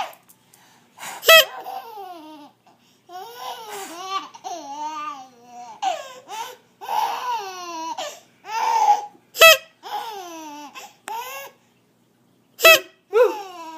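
High-pitched laughing and squealing in a run of short calls that rise and fall in pitch, broken by three brief, loud, sharp shrieks.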